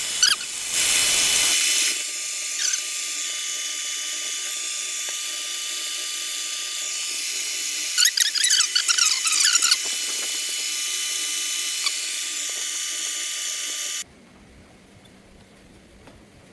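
Metal lathe running as it turns down a steel hinge pin, a steady machine whir with a high whine. About eight seconds in there is a burst of irregular high squeals from the cut, and about fourteen seconds in the lathe shuts off and the sound drops away.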